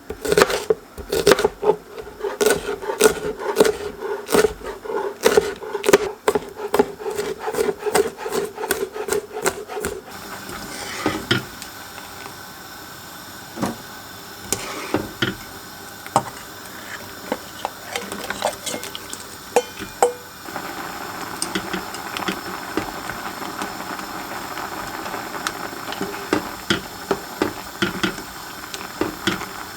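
Knife chopping on a wooden cutting board in quick, regular strokes for about ten seconds. Then the sound changes suddenly to a steady hiss with scattered light knocks and clinks of kitchen work.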